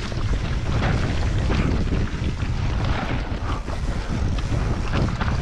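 Wind rushing over the microphone with the rumble and irregular clatter of a downhill mountain bike riding over rough trail.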